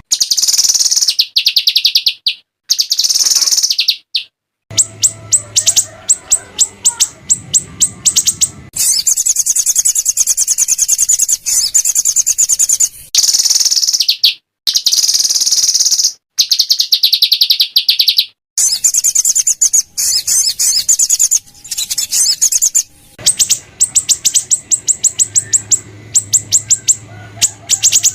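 Small songbirds' harsh, rapid-fire 'tembakan' calls: fast trills of sharp, high chips, spliced together in short segments with abrupt cuts between them, a masteran recording for training songbirds.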